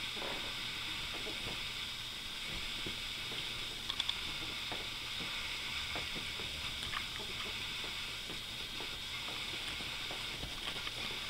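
Ferrets scuffling with a fleece blanket on a bed: faint, scattered rustling of the fabric over a steady hiss, with a couple of sharp ticks about four seconds in.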